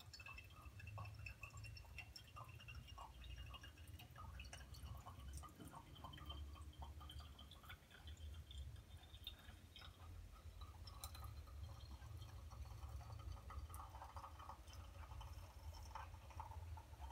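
Sinbo espresso machine brewing, faint: coffee dripping into its glass carafe as light, irregular ticks over a low steady hum, with a thin whistle that slowly rises in pitch over the first half.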